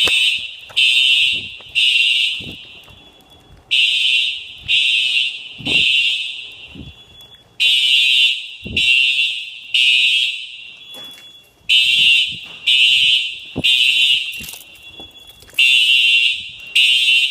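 Fire alarm sounding during a test: loud, high-pitched beeps in groups of three, about one beep a second, with a pause of about a second and a half between groups. This is the temporal-three evacuation pattern.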